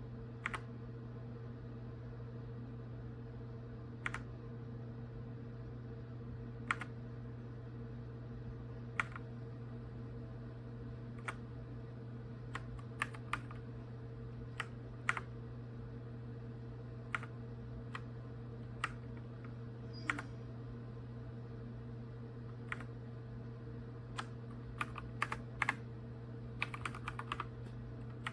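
Redragon K689 mechanical keyboard with linear switches, keys pressed one at a time every one to three seconds, then a quick run of several keystrokes near the end. A steady low hum runs underneath.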